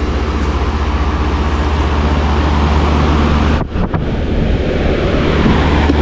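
A 2022 Heil PHJ4 3.5-ton package heat pump running in cool mode: the steady rush of air from its condenser fan over a deep, steady compressor hum. The sound drops out briefly a little past halfway.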